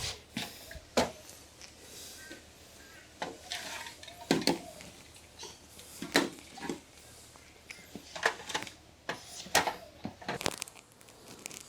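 Irregular knocks, clunks and clatters of tools and gear being handled and set down, about a dozen sharp hits spread out with short gaps between them.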